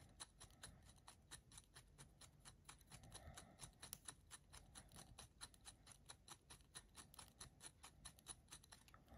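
Faint, quick, even clicking, about six a second, from a hand-turned pin vise as its 4 mm twist bit slowly cuts through thin 0.2 mm aluminium sheet.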